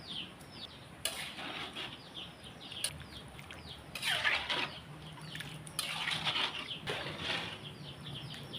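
Birds chirping over and over in short, high, falling notes, with four longer bursts of scraping, rustling noise from work in the kitchen.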